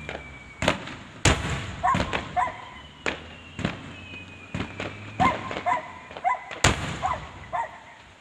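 Aerial fireworks bursting in quick succession: a string of sharp bangs, the loudest about a second in and again near the end. A faint whistle glides slowly downward between them.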